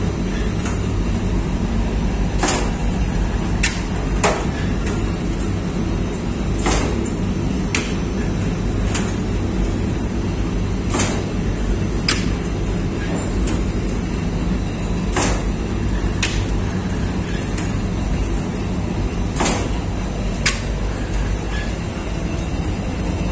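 Lavash dough-sheeting machine running with a steady low mechanical hum, with a pair of sharp clacks, about a second apart, repeating roughly every four seconds as the machine cycles.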